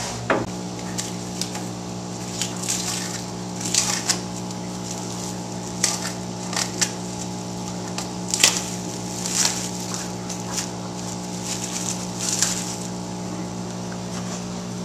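Plastic parts and their plastic packaging being handled: short spells of crinkling and rustling with small clicks and knocks, over a steady low hum.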